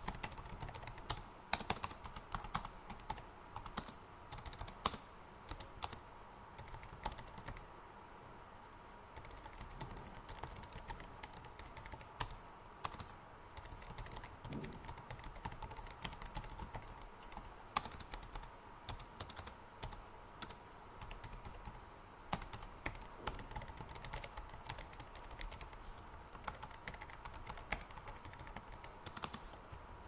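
Typing on a laptop keyboard: irregular runs of quick key clicks with brief pauses between them.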